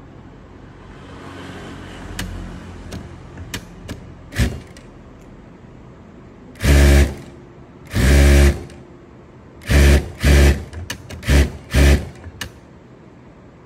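Industrial single-needle lockstitch sewing machine stitching fabric in six short bursts of about half a second each, in the second half, with a few light clicks of handling before.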